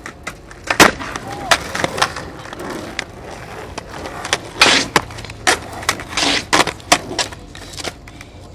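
Freestyle skateboard tricks on flat concrete: an irregular run of sharp clacks as the board and its wheels strike the ground, the loudest about a second in, with short stretches of wheels rolling and scraping between.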